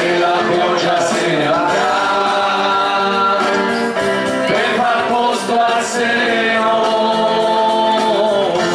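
A small mixed vocal group of men and women sings an Italian song together into microphones, holding long notes.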